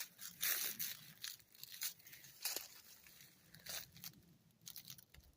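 Footsteps crunching and rustling through dry leaf litter and undergrowth: irregular, fairly faint crunches about once a second.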